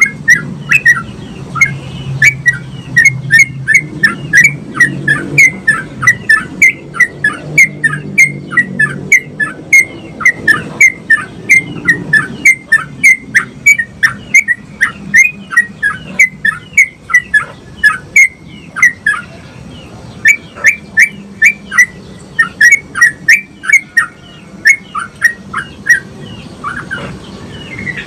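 Sooty-headed bulbul (trucukan) singing a long, rapid run of short, sharp chirping notes, about three a second, with brief pauses twice in the second half. This is the fast rolling 'ngeropel' song that bird keepers train for.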